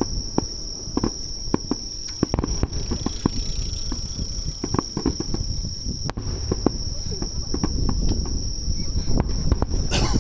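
A steady, high-pitched trill from a chorus of night insects, over a low rumble and many short scattered knocks.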